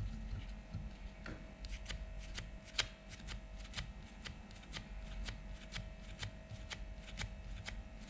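Light, papery clicking and ticking from a handmade cardboard and craft-foam toy buckle as hands twist and work its parts: a run of short clicks, about three a second, starting about a second and a half in, over a faint steady hum.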